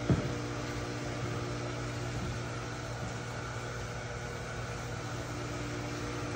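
Electric water pump running steadily with a constant hum, drawing cleaning solution through a soaking rug. A single brief knock sounds right at the start.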